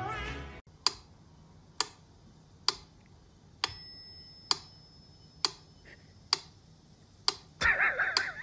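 Clock ticking evenly, a little under once a second, some ticks carrying a short ringing tone. Near the end a brief, wavering, higher-pitched sound joins in.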